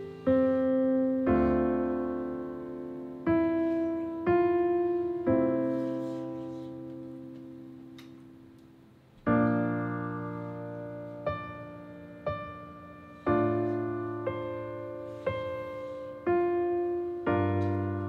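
Background solo piano music: slow, soft notes and chords, each struck and left to ring and fade, with a long fading pause near the middle.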